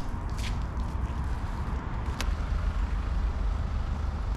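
A small camper van's engine running, a steady low rumble, with a few faint light clicks on top.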